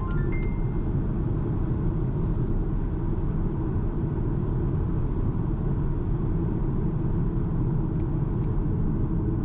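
Steady low road and wind rumble inside the cabin of a BMW X1 xDrive25e plug-in hybrid cruising at about 110 km/h on Michelin Pilot Sport 4 summer tyres.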